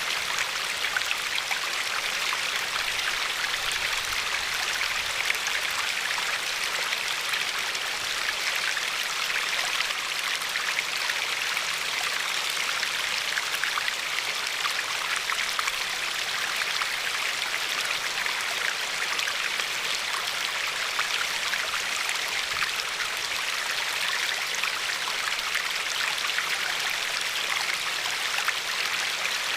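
Glacier-fed river flowing steadily over a pebbly shore, a continuous rushing babble with fine splashes and no let-up.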